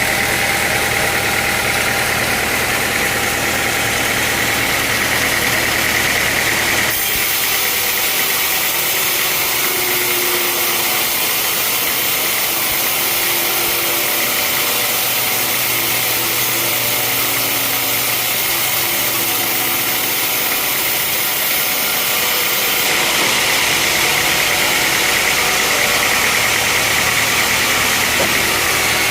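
Sawmill machinery running steadily: a loud engine hum under a dense hiss. The sound changes abruptly twice, about seven seconds in and again about six seconds before the end.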